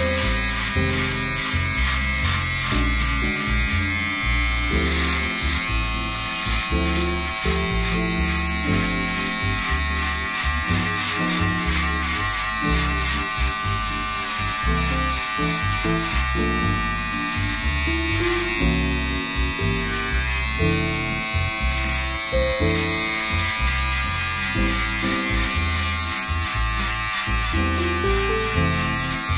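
Cordless Manscaped beard trimmer buzzing steadily with its guard off, run along the neckline of a beard. Background music with a bass line plays underneath.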